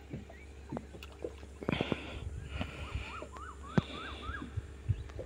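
Small boat rocking on a backwater, water lapping and sloshing against the hull, with a few light knocks. A short run of about five quick chirps comes about three seconds in.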